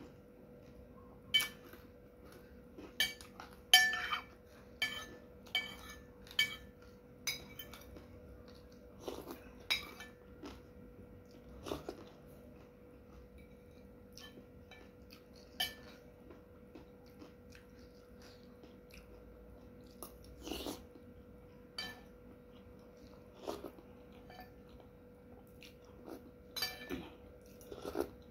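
Metal spoon and fork clinking and scraping against a ceramic soup bowl in irregular taps, most frequent in the first several seconds and sparser later, with soft chewing in between.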